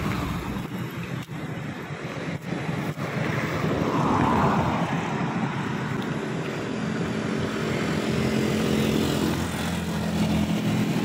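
Road traffic: vehicle engines running past, with a steady engine hum coming in about halfway through.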